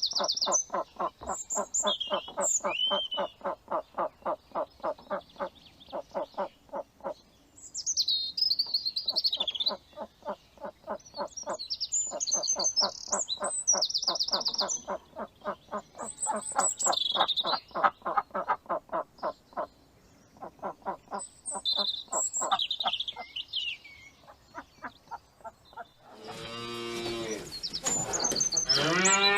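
Animal calls: bouts of several seconds of rapid, evenly repeated pulsed calls, about four or five a second, with small birds chirping above them. Near the end a louder, wavering call rises and falls.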